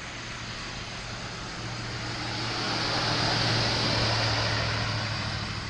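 A car passing by: its road noise swells to a peak about three to four seconds in and then fades, over a steady low hum.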